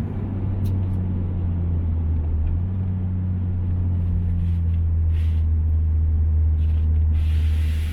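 Proton Inspira's four-cylinder engine idling steadily, a low even drone with no pops.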